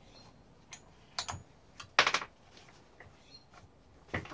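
A partly dismantled Husqvarna 357 chainsaw being handled and turned over on a workbench: a series of short clicks and knocks as its parts tap against each other and the bench. The loudest knock comes about two seconds in, with another near the end.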